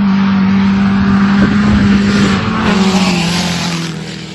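Two race cars passing at speed on a gravel road, engines held at high revs. The steady engine note drops in pitch as they go by, over a loud rush of tyres on gravel that peaks just before they pass and then fades.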